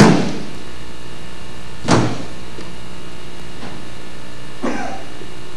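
A sharp thump at the start and another about two seconds in, with a fainter one near the end, over a steady low hum.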